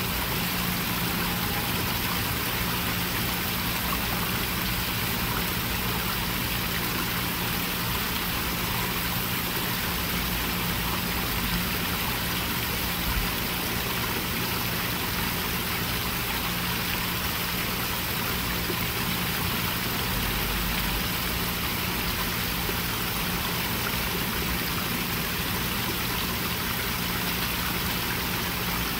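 Small koi-pond waterfall splashing steadily into the pond, with a low steady hum underneath.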